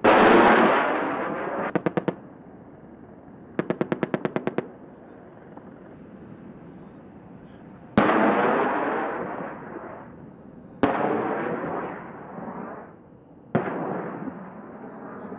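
AH-64 Apache attack helicopter firing rockets and its 30 mm chain gun. A loud rocket launch with a whoosh that fades over about two seconds opens the sound. Two short bursts of cannon fire follow, about nine rounds a second, and then three more rocket launches, each a sharp crack trailing off in a fading whoosh.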